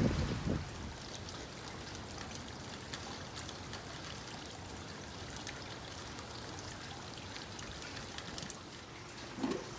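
Steady water patter with faint small clicks scattered through it, and a few low knocks at the very start and again near the end.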